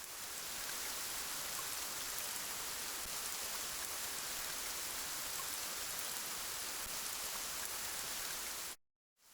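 Steady rain, an even hiss with no distinct drops, that cuts off abruptly near the end and fades straight back in.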